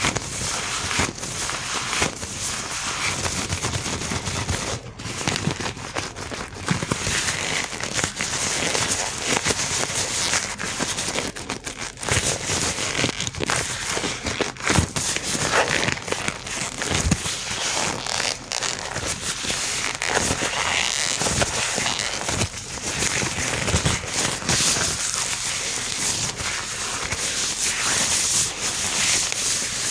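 Gloved hands rubbing and crinkling close to the microphone for ASMR: a dense, continuous crackling with many small clicks.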